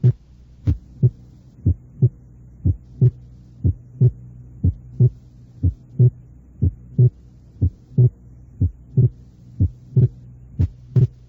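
Human heart sounds heard at the second left intercostal space: the first and second heart sounds in pairs, about one pair a second, the second sound the louder, with the second sound splitting during inspiration as with slow breathing. A steady low hum runs underneath.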